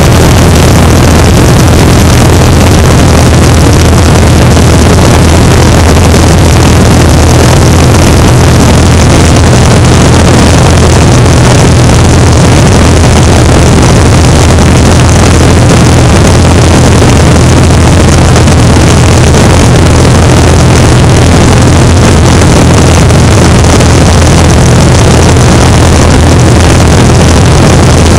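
A 1981 Great Lakes biplane's engine and propeller running steadily in cruise flight, a loud, unchanging low drone. Heavy wind rushes over the exposed microphone in the slipstream.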